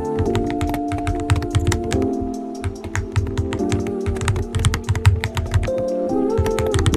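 Fast, steady typing on a mechanical keyboard fitted with TTC Flip King of Magnetic switches: a dense run of irregular key clacks. Background music with held chords plays under it.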